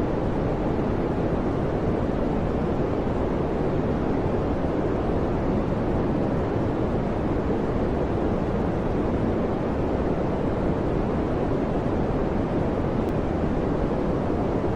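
Steady fan noise: an even, low rushing with no hum, clicks or rhythm.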